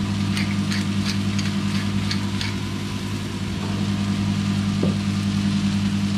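Noodles and mushrooms frying in a metal wok under a steady low hum. Over the first couple of seconds there is a run of light clicks, about three a second, from a pepper grinder being worked over the wok.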